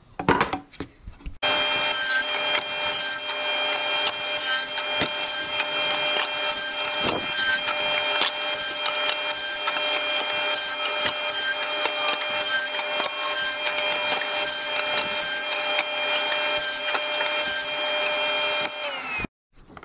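Table saw with a dado blade stack running steadily, with a faint regular ticking about twice a second. Its pitch sags slightly near the end as it begins to wind down, then the sound cuts off suddenly.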